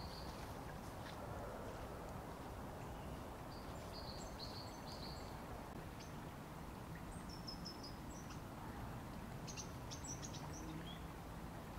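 Steady rush of a rain-swollen, overflowing river, with small birds chirping high and briefly in three short spells.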